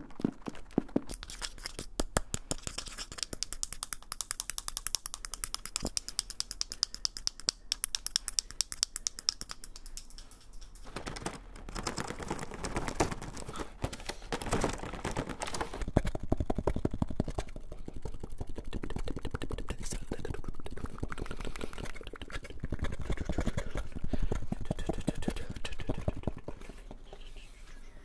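Rapid, dense clicking and tapping on a hard-shell case for ASMR. About eleven seconds in it gives way to rough rustling and scratching as a small cardboard box is handled and rubbed.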